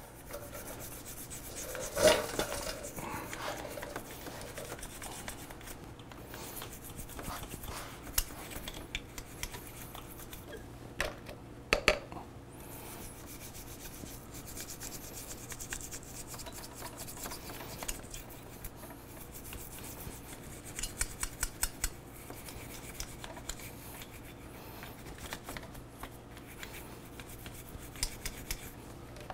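Small bristle brush scrubbing soapy water around the pistons of a four-piston motorcycle brake caliper, the bristles scratching and rubbing in repeated strokes with scattered clicks and a few knocks as the caliper is handled. A faint steady hum sits underneath.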